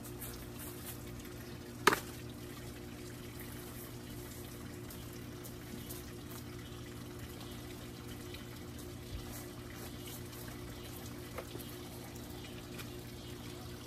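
Water running steadily, with a sharp knock about two seconds in and a couple of faint clicks later.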